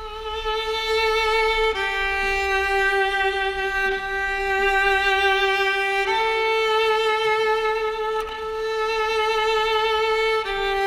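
Background music, an instrumental break in a song: a single melody of four long held notes with vibrato, each note lasting a few seconds.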